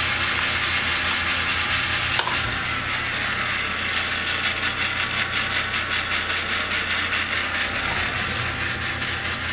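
Small electric motor and gearbox of a toy remote-control truck's rear axle running with the wheels spinning freely, its power being turned down from full. A steady mechanical whir with a fast, even ticking from about four seconds in, and a single click a little after two seconds.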